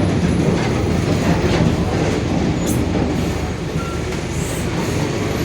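Mercedes-Benz OF-1721 Bluetec 5 bus chassis under way: diesel engine and drivetrain running steadily with a low growl, which the uploader puts down to the differential. A few brief high squeaks come through over it.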